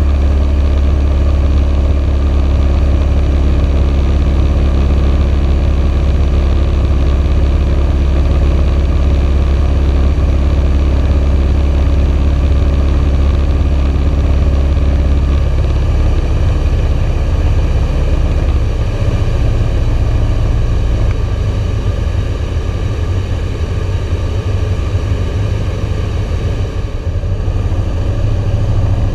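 Socata TB9 Tampico light aircraft's four-cylinder Lycoming piston engine and propeller, heard from inside the cabin as a loud, steady drone. About two-thirds of the way through the engine note changes and eases slightly as the aircraft comes onto final approach.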